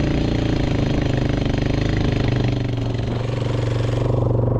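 Motorcycle engine running steadily at low speed, with a rushing hiss over it that drops away near the end.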